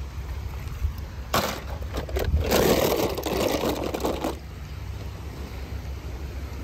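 Steady low wind rumble on the microphone. About a second and a half in there is a sharp knock, then a couple of seconds of scraping, rattling handling noise.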